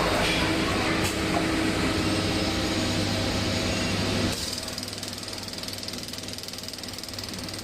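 Laser welding machine running with a steady mechanical hum. About four seconds in the sound drops and turns into a fast, even buzzing pulse.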